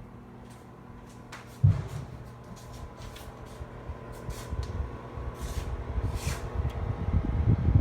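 Oven being set to preheat: a few clicks on the controls and a knock about two seconds in, then the oven's fan starts, its rushing growing steadily louder toward the end.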